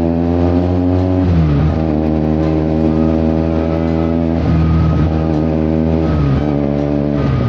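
Benelli 300 parallel-twin motorcycle engine running through an IXIL aftermarket exhaust, loud, with a smooth, even note that the rider says a twin does not normally give. The revs hold steady and drop sharply several times, about a second and a half in, once midway and twice near the end.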